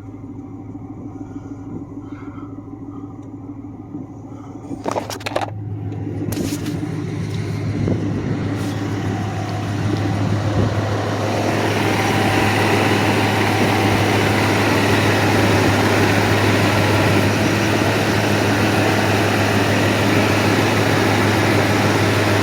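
A 2004 Dodge Ram's 5.7 Hemi V8 running at idle with fresh oil after an oil change, a steady low hum. A few sharp knocks come about five seconds in. Then a rushing noise builds over several seconds and holds steady.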